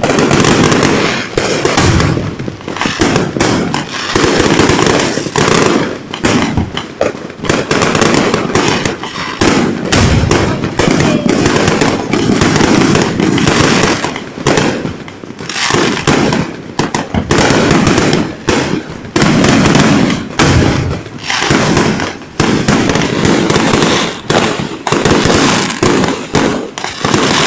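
Fireworks and firecrackers going off in a dense, near-continuous barrage of loud, overlapping bangs and crackles, with only brief lulls.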